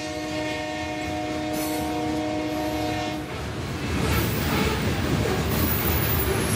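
A freight locomotive's horn sounds one steady chord and cuts off about three seconds in, over the rolling wheel-on-rail noise of a grain train's covered hopper cars passing. The wheel noise then grows louder and fills the rest.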